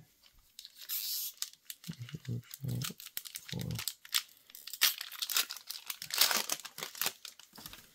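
Foil trading-card booster-pack wrappers crinkling and being torn open, in many short, irregular crackles, as packs and cards are handled.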